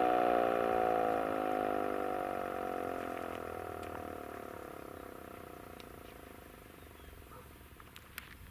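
Federal Signal Model 2 electromechanical fire siren winding down: its tone slides steadily lower and fades away over about five seconds as the rotor coasts to a stop with the power switched off. A few faint ticks follow near the end.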